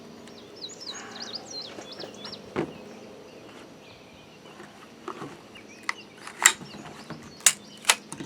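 Sharp metallic clicks of a Glock 40 Gen4 10mm pistol being taken apart, one about two and a half seconds in and a cluster of four in the last few seconds. Birds chirp in quick repeated notes near the start.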